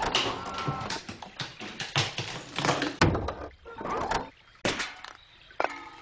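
Cartoon sound effects of shots striking a tree: a rapid, uneven series of sharp knocks and thuds, the loudest about three seconds in, thinning out for a moment after about four seconds.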